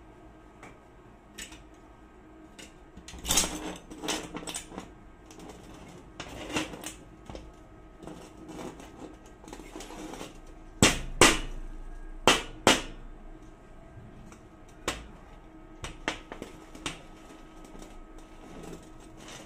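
Steel roller chain clinking and clanking against a steel workbench and bar as it is handled. There are irregular sharp metal clicks, with a cluster of the loudest clanks a little past the middle.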